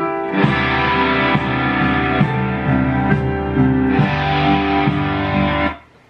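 Loud music, a short guitar-led piece that starts abruptly and cuts off abruptly about five and a half seconds in.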